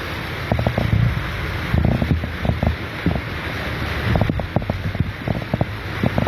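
Heavy hurricane rain and wind with tyres rushing through floodwater, heard from inside a moving vehicle. Many short knocks sound over a steady low rumble.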